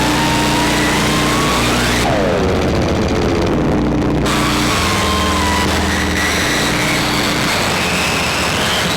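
Electronic drone and noise from a Bastl Kastle 1.5 mini synth and a looped Krackatone noise box through effects and reverb: steady low droning tones under hiss, with squealing pitches gliding up and down. About two seconds in, a falling sweep sounds and the high hiss drops away for a couple of seconds. Another falling sweep comes near the end.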